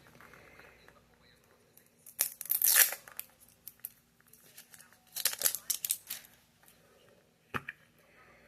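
Plastic packaging being torn and crinkled by hand, in two short bursts, then a single light knock near the end.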